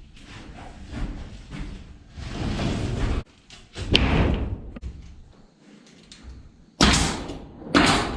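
Knocking and handling noise of building work, ending in two loud bangs about a second apart near the end.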